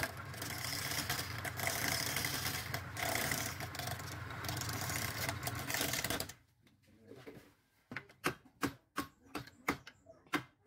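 Wood lathe turning a wooden blank with a hand-held chisel cutting into it: a dense, steady scraping noise over the lathe motor's hum. About six seconds in this stops, and a quieter run of sharp, uneven clicks and knocks follows.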